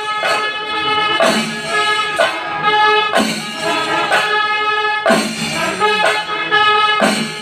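Kerala chenda melam: massed chenda drums and elathalam cymbals, with horns sounding held notes in phrases about a second long, broken by sharp strokes roughly once a second.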